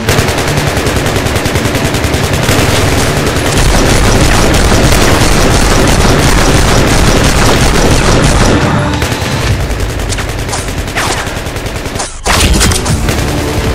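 Rapid machine-gun fire sound effects over background music, loud and nearly continuous, with a brief break about twelve seconds in.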